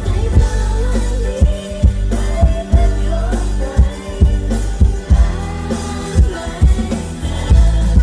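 Live pop band performing a song with sung vocals over electric guitars, keyboard, a heavy kick drum and bass.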